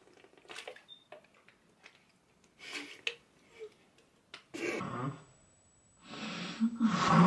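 Two girls with mouths full of water, sputtering and breathing sharply through their noses in short stifled snorts as they try not to laugh. Near the end it grows into louder, continuous muffled laughter.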